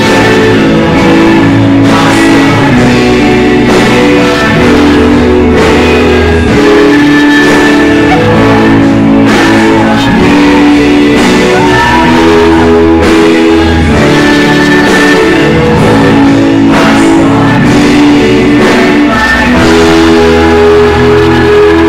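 Song with several voices singing over strummed guitar, steady and loud throughout.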